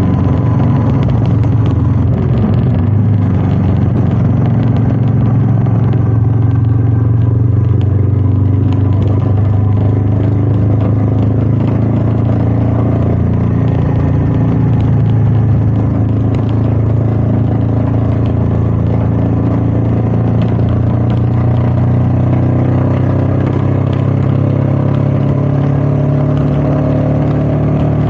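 Royal Enfield Meteor 350's single-cylinder engine running steadily under way, at an even pace.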